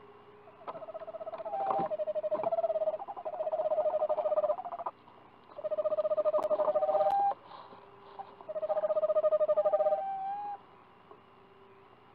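Eastern screech owl giving its long, even trill: three rapid, pulsing trills of a few seconds each, held at one pitch, with short pauses between.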